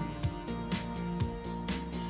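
Background music with a steady drum beat, about two beats a second, over held notes.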